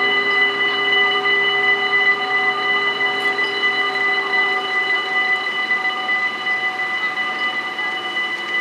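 Dutch AHOB level-crossing warning bells ringing steadily and continuously while the half-barriers lower. A lower hum under the ringing fades out about five seconds in.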